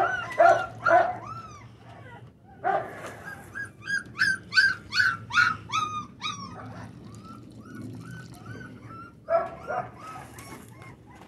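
Four-week-old American bully puppies whining and yelping in a rapid string of short, high cries, hungry at feeding time. There is a brief lull about two seconds in and another flurry near the end.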